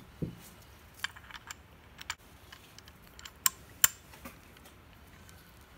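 Scattered light metallic clicks and ticks of small steel clutch bells being handled and set into a lathe apron's gear housing, with two sharper clicks about three and a half seconds in.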